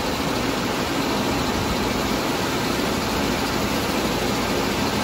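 Steady machinery noise of a plant mechanical room: an even rumble and hiss with a faint steady hum, from running equipment.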